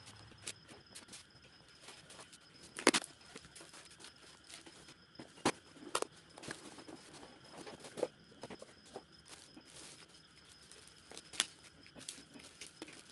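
Hands unwrapping a parcel: plastic wrapping and tape being torn, cardboard flaps handled and a plastic bag rustled. It comes as a string of crackles and rips, the loudest about three seconds in.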